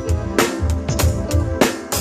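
Live band playing with a drum kit keeping a steady beat of kick and snare hits over bass notes and held instrument tones.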